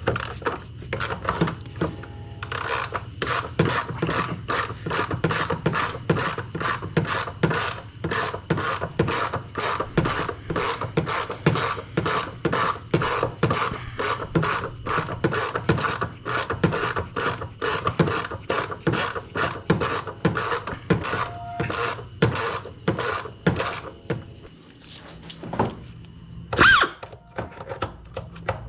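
Hand ratchet wrench clicking in quick, even strokes, about two a second, as a fastener is worked loose. It stops a few seconds before the end, followed by a brief knock.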